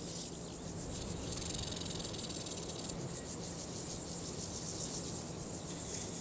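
Male grasshopper stridulating: a high-pitched rasping song scraped out by rubbing the pegged inner side of its long hind legs against its body, coming in stretches of a second or more.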